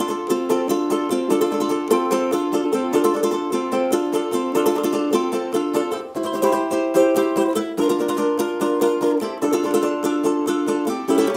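Fender Fullerton Stratocaster ukulele (mahogany body, maple neck) strummed acoustically, its unplugged sound picked up by a microphone rather than its pickup. It plays a steady run of fast strummed chords that change every second or two.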